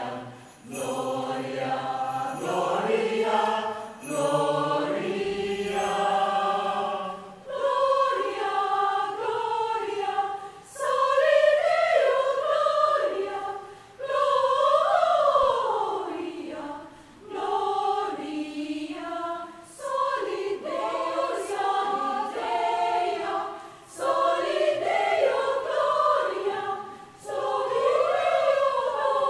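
Mixed choir of women's and men's voices singing in harmony, in phrases a few seconds long with brief pauses between them.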